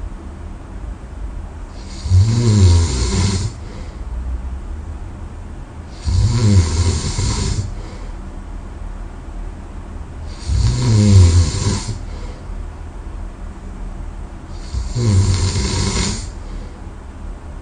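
A person snoring loudly in sleep: four long snores, about four seconds apart and each lasting about a second and a half, with quieter breathing between them.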